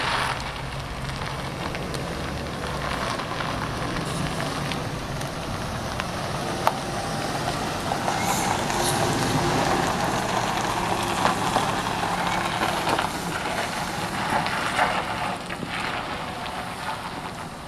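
A 2002 Chevrolet Silverado 1500's 4.8-litre V8 running, a steady low hum under a broad rushing noise, with one short sharp click partway through.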